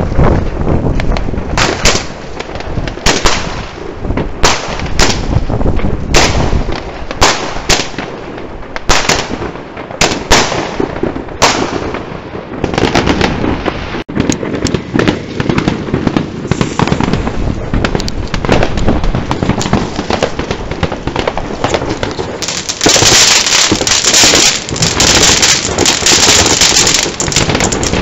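Fireworks going off. First comes a run of loud, separate bangs lasting about twelve seconds. After a brief dropout, there is continuous dense crackling, which gets louder and hissier for the last few seconds.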